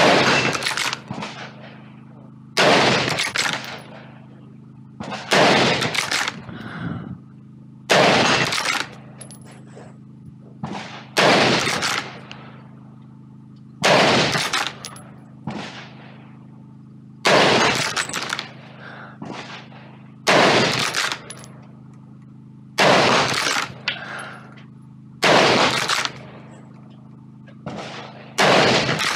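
Ruger American Ranch bolt-action rifle in .223 firing about eleven shots, one every two to three seconds, with quieter clicks and knocks between shots as the bolt is cycled.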